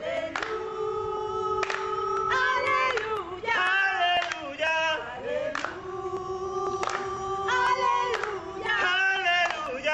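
A small mixed group of men's and women's voices singing together, holding some long notes between shorter phrases.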